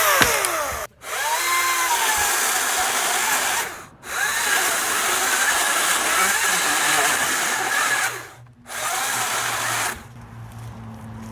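Ryobi 40-volt brushless cordless chainsaw running at full speed while cutting a tree, in several bursts with brief stops as the trigger is let off. It winds down and goes quiet near the end.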